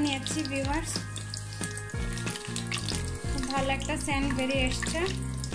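Whole spices (dried red chillies, cardamom, bay leaves, cinnamon and cumin seeds) sizzling and crackling in hot oil as they are tempered, with background music playing over it.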